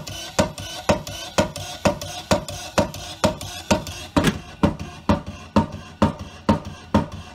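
Motor-driven fish-calling thumper: a small battery-powered electric motor repeatedly lifts and drops a wooden-handled hammer inside a plastic toolbox, knocking steadily about twice a second, each knock ringing briefly.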